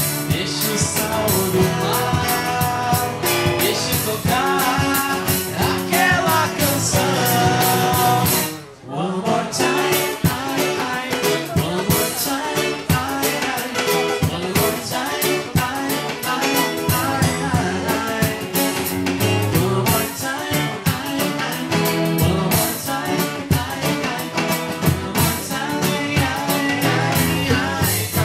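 Live acoustic band playing: male and female voices singing over strummed acoustic guitars, with drums keeping a steady beat. The music drops out briefly about nine seconds in, then comes back in full.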